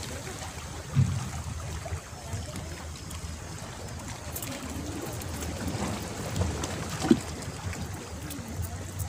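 Wind rumbling on the microphone over small sea waves lapping at shore rocks, with two brief knocks, about a second in and about two seconds before the end.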